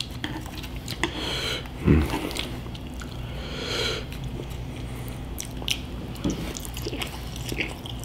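Chewing and wet mouth sounds of a person eating cold noodles and Spam, with small clicks and two stretches of hissing noise, about a second in and again around three seconds in.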